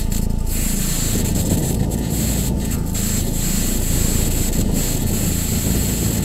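Steady rumbling, wind-like ambient soundscape, an added sound-design track, with a low drone that slowly swells and fades and a constant high hiss.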